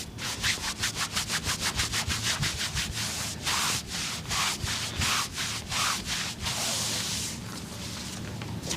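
Brisk rubbing strokes, about five a second, turning into longer, slower strokes after about three seconds and fading near the end.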